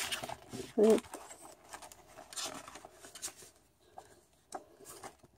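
Paper and cardstock being handled and rustled, with short crinkles and taps, and a brief vocal murmur about a second in.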